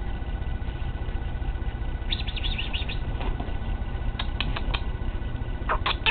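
Chihuahua puppy giving short, high-pitched squeaks in three quick clusters as it plays excitedly, over a steady low rumble.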